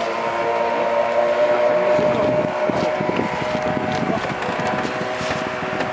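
A small engine running steadily, a hum of several steady tones, with rustling and rubbing from a drysuit's rubber gloves being pulled on and adjusted.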